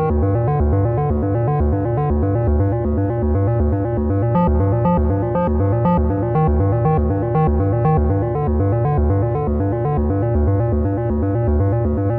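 Arturia MatrixBrute analog synthesizer playing a sequenced patch: a steady, fast run of short repeated notes over a pulsing bass line.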